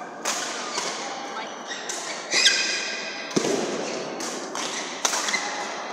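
Badminton rackets smacking a shuttlecock during a fast doubles rally, sharp hits a second or two apart, with court shoes squeaking on the floor and a heavy footfall thud about halfway through. The hits ring with the echo of a large hall.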